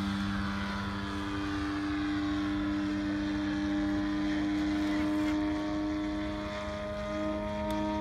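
Model tow plane's engine and propeller giving a steady drone as it climbs away under load, towing a large model glider on aerotow.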